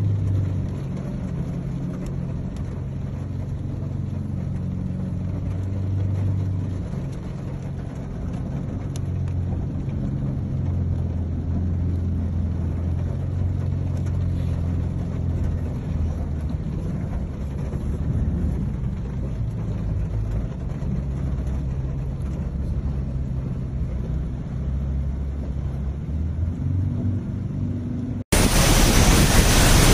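Car interior while driving through floodwater: a steady low engine and cabin drone with water washing along the car's sides. Near the end it cuts abruptly to a much louder, even rushing hiss.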